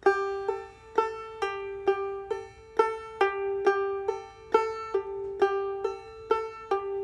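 Banjo played clawhammer style: a slow, even run of single notes about two a second, alternating between two close pitches up the neck with hammer-ons and pull-offs. The last note rings on near the end.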